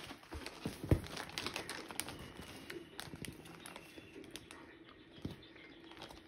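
Plastic snack bags and a soft plastic wipes packet crinkling and rustling under a small capuchin monkey's hands and feet as it rummages. There are scattered light clicks, and a louder knock about a second in.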